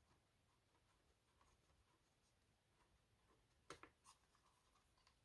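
Near silence, with a few faint short clicks about three and a half to four seconds in.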